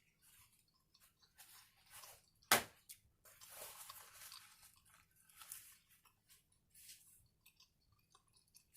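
Close-miked chewing of a bite of an Italian sub sandwich: soft, wet crackles and smacks, with one sharp crunch about two and a half seconds in.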